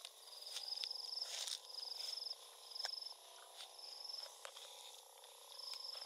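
An insect calls in short, high, buzzy trills at a steady pitch, repeated about once a second. A few faint clicks come through underneath.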